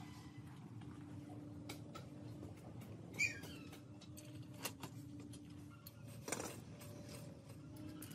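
Light metal clicks and knocks as a mini motorbike's rear wheel and axle are handled into the steel swingarm, the firmest knock about six seconds in. A short, high chirping squeak sounds about three seconds in, over a faint steady hum.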